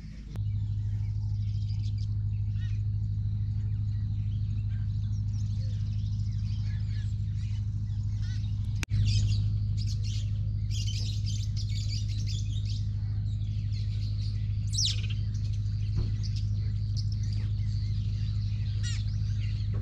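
Birds chirping and calling, many short chirps scattered throughout, over a steady low hum.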